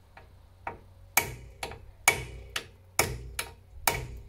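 Hammer striking steel on a car's front steering and suspension, about two blows a second, the stronger ones ringing briefly. It is being used to knock the steering link loose.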